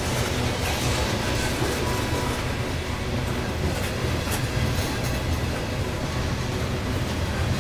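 Freight train of tank cars rolling past close by: a steady rumble of steel wheels on the rails, with an occasional faint click.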